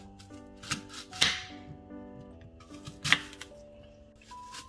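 Knife cutting through a fresh apple and striking a wooden cutting board: four sharp chops, the loudest about a second in. Background music plays throughout.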